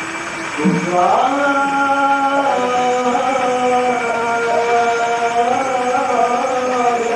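Holy Qurbana liturgical chant sung by a man's voice in long held notes. A new phrase swoops up from low and grows louder about a second in.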